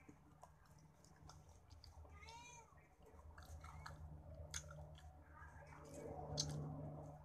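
Close chewing and sharp mouth clicks from a person eating rice and fried fish by hand, with a cat meowing once about two seconds in.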